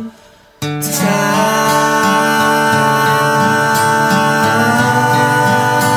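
Two acoustic guitars strummed with two male voices singing an acoustic folk song. The music stops dead for about half a second at the start, then guitars and voices come back in together and carry on.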